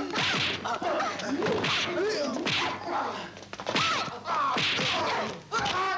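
Kung fu fight sound effects: a rapid series of whacks and smashes from punches, kicks and club blows, about five or six strikes, mixed with the fighters' short shouts and cries.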